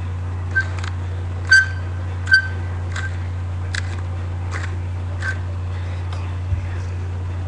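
Wooden pepper mill being twisted to grind pepper, giving irregular sharp clicks and crunches about once a second, some with a brief squeak. A steady low hum runs underneath.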